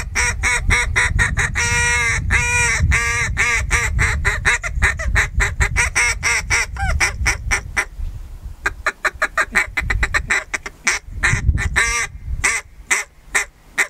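Arkansas-style single-reed, open-action mallard duck call blown by mouth, giving a long string of mallard quacks. The first notes are fuller and longer; about nine seconds in they break into a rapid run of short, clipped notes, followed by a few more quacks near the end.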